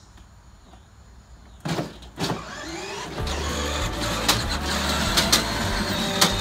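Battery-powered ride-on toy pickup truck pulling away with a trailer in tow: two short loud sounds about two seconds in, then its electric drive motors run steadily while the hitched metal trailer rattles with sharp clanks over the concrete.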